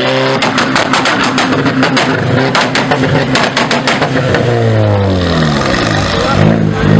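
Car engines revving hard. About half a second in comes a rapid run of sharp exhaust pops and crackles that lasts about three seconds. Another engine then revs up, with quick up-and-down blips near the end.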